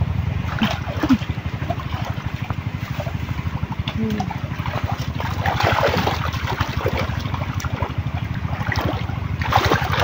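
Hands splashing and scooping through shallow muddy water, with the heaviest splashing in the middle and near the end, over a steady low thrum of a motor running.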